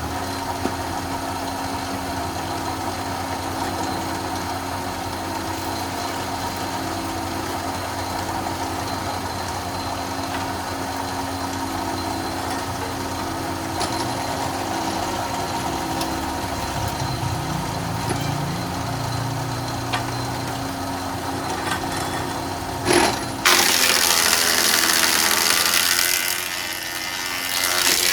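Single-phase electric wood planer running steadily with a constant hum. Near the end a board of jati belanda (pallet wood) goes through the cutter, giving a loud rasping cut for about five seconds.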